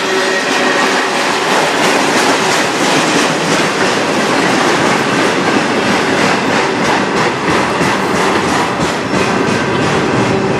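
Freight train cars, autoracks, rolling steadily past: continuous wheel-and-rail rumble with rapid clickety-clack of wheels over rail joints.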